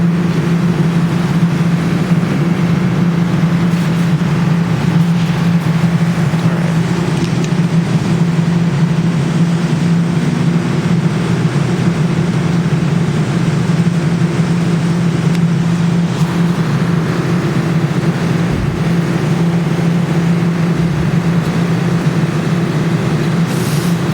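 Steady low electrical hum with a faint overtone above it, from a claw machine being played, unchanging throughout.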